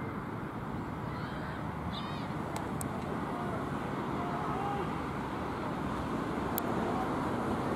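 Steady outdoor background noise with faint, distant voices, a couple of short high calls and a few sharp clicks.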